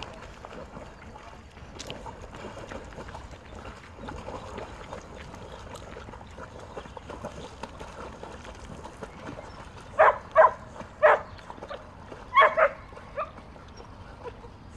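A dog barking: three short barks about ten seconds in, then two more in quick succession a second later, over a faint steady hiss of background noise.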